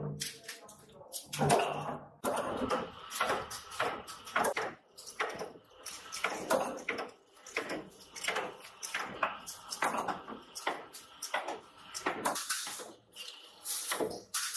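Thin sheet-metal strips clinking and scraping as they are handled and fed through a small roller machine, in irregular sharp clicks about one or two a second.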